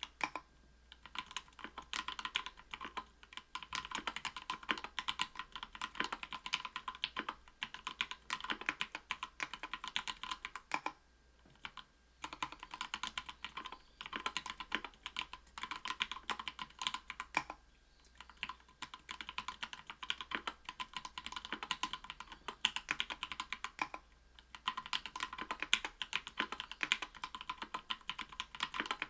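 Continuous fast typing on a mechanical keyboard fitted with lubed SP-Star Polaris Gray 67g linear switches in an aluminium plate, with Cherry-profile PBT keycaps and lubed stabilisers. Rapid keystroke clicks, broken by a few brief pauses.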